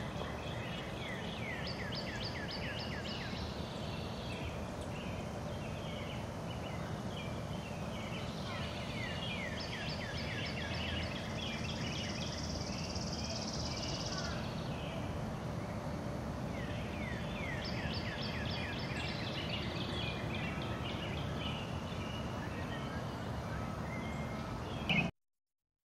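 An animal calling outdoors: three bouts of rapid high chirps, each lasting a few seconds, over steady background noise, cutting off abruptly near the end.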